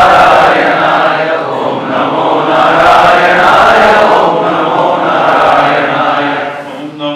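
Many voices chanting together in unison, in a steady, loud rhythmic recitation. Near the end the group thins and the sound grows quieter.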